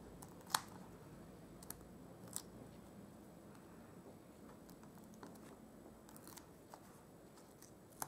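Faint, scattered small clicks and light rustles of fingers peeling foam adhesive dimensionals off their backing sheet and handling the paper pieces, with the sharpest tick about half a second in.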